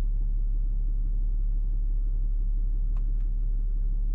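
Steady low rumble and hum, with two faint clicks about three seconds in.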